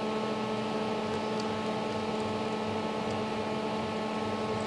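Steady electrical hum made of several fixed tones, with a few faint light clicks from small parts of a motor circuit breaker being handled during reassembly.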